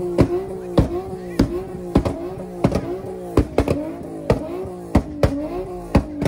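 Infiniti G coupe's V6 held at high revs on the rev limiter during a stationary burnout, with the rear tyres spinning. Sharp cracks come every half second to a second, each with a brief dip and recovery in engine pitch.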